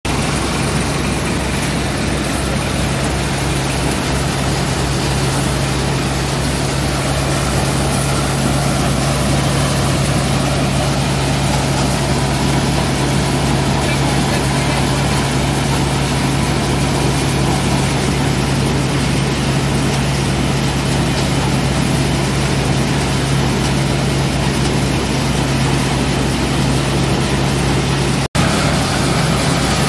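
Tractor-driven groundnut (peanut) thresher running at steady speed, with the tractor engine's steady drone and a low hum under the noise of the thresher's drum and blower as peanut plants are fed in. The sound breaks off for a moment near the end.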